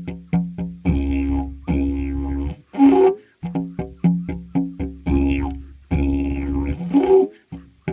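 Agave-wood didgeridoo played on its primary C# drone. Runs of short rhythmic pulses, about five a second, alternate with held drones about a second long, shaped by shifting vowel-like overtones.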